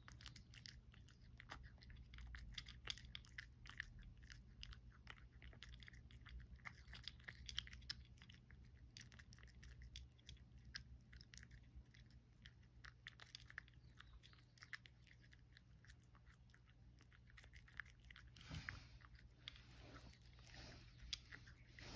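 A cat crunching dry kibble, quiet rapid cracks as it chews without a break.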